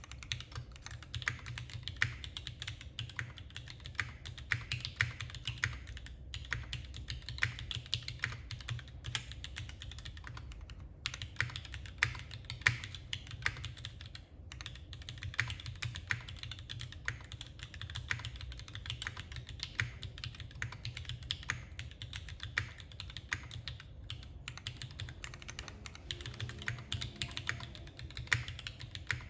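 Steady, fast typing on a custom mechanical keyboard with linear Gateron Yellow switches and GMK doubleshot ABS keycaps: a dense run of keystroke clacks, pausing briefly a couple of times.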